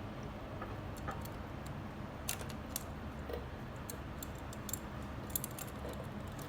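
Scattered light metallic clicks and taps from a hand wrench working on the choke cable fitting, over a steady low hum.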